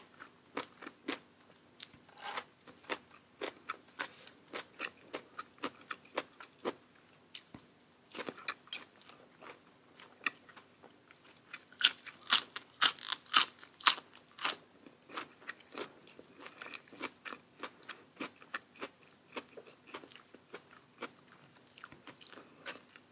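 Close-miked chewing and crunching of food, a steady run of crisp bites with a burst of loud crunches about twelve to fourteen seconds in.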